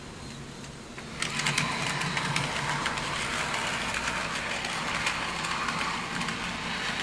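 N scale model tram running on the layout track: the steady whir of its small motor and wheels, with rapid irregular clicks of the wheels over rail joints and turnouts, coming in about a second in.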